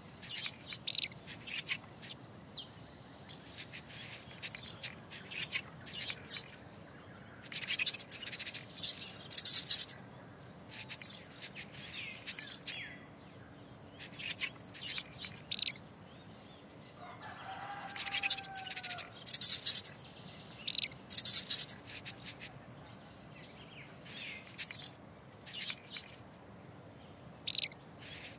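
Mouse squeak sound effects: clusters of short, very high-pitched squeaks every second or two, with one lower gliding squeal about two-thirds of the way through, over a faint steady background hiss.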